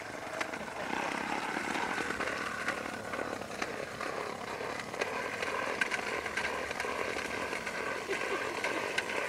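Plastic toy push lawn mower rattling as it is pushed over grass: a steady clatter with many small clicks.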